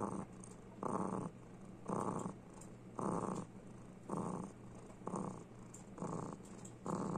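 A domestic cat purring, the purr swelling about once a second with each breath, as it is content under a hand stroking its head.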